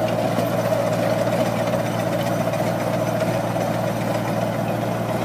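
Tractor engine running steadily while pulling a rotary ditcher through soil.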